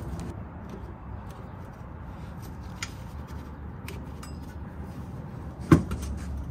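Stainless steel aftermarket muffler being handled and pushed up into place under the car, with a few faint knocks and one sharp metal clunk near the end.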